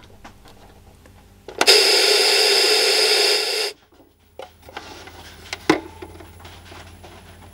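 Static hiss from the GAF 5-inch black-and-white portable TV's speaker with no station tuned. It comes on with a click about one and a half seconds in and cuts off suddenly about two seconds later, as the clip-lead power connection drops out. A few faint handling knocks follow.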